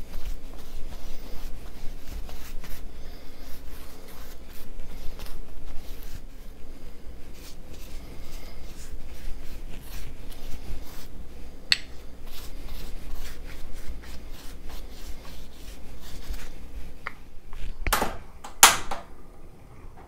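Soft, scratchy strokes of a pastry brush's bristles rubbing over a rolled flour-tortilla wrap. About 18 seconds in come two or three loud, sharp clicks close together, which fit a portable gas stove's igniter being turned as its burner lights.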